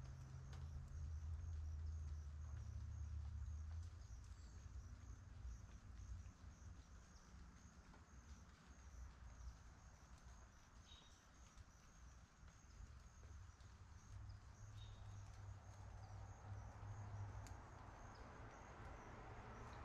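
Quiet roadside ambience: a faint low rumble of distant traffic under a faint, evenly repeated high chirping of insects. Near the end a car approaches, its tyre noise growing.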